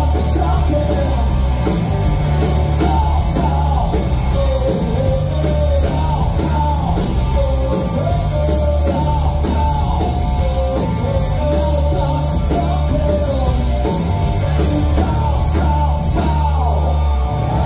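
A rock band playing live: guitars, bass and drums with a lead singer's voice over the top, heard loud through a club PA. The whole band stops together right at the end.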